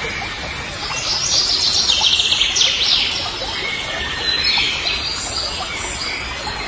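Birds chirping in quick trills, loudest from about one to three seconds in with a shorter burst of calls a little later, over a steady background hiss.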